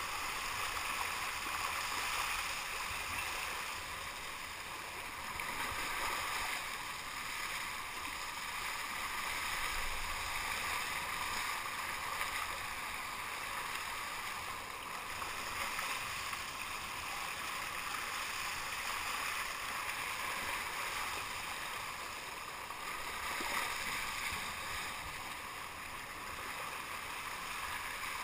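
Water rushing and splashing along the hull of a sea kayak being paddled, a steady hiss that swells and eases every few seconds.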